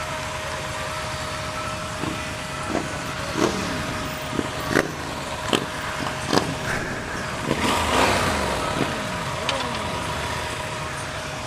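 Yamaha Super Ténéré 1200's parallel-twin engine idling with its radiator fan running as a steady whine. Over it, other motorcycles rev several times, each note falling away, and there are a few short sharp knocks.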